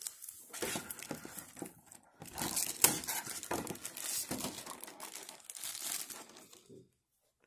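Clear plastic packaging, a rigid blister tray and a thin plastic bag, crinkling and crackling as it is handled and pulled off a figure. The crackling is loudest a little over two seconds in and stops suddenly just before the end.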